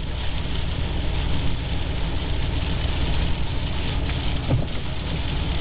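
Steady roar of strong wind and storm surf, with the wind rumbling and buffeting on the microphone.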